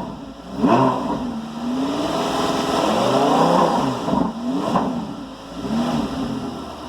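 Lamborghini Gallardo LP560's V10 revved repeatedly through its stock exhaust with the exhaust valves open. There is a sharp blip about a second in, a longer rise and fall through the middle, then two shorter blips, each dropping back toward idle.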